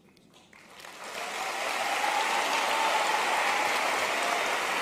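Large audience applauding: quiet at first, the clapping swells about a second in and then holds steady.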